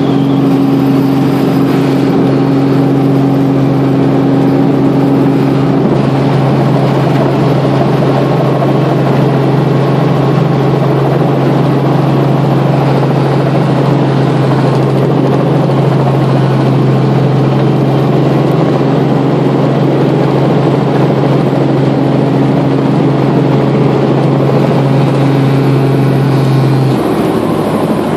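Robinson R44 Raven II helicopter heard from inside the cabin as it comes in to land: its piston engine and rotor run loud and steady, with a constant low hum. Near the end the low hum drops away and the noise eases slightly.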